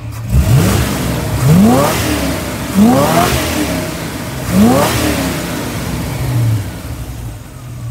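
Chevrolet 350 cubic-inch (5.7 L) small-block V8 idling and being blipped: four quick revs, each a fast rise in pitch that falls back to idle, then a smaller one near the end.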